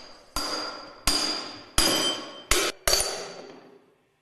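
Five hammer blows on a metal drift, driving the grooved ball bearings and distance bush out of a Westfalia purifier's clutch drum; each strike rings metallically and dies away, and the last two come close together.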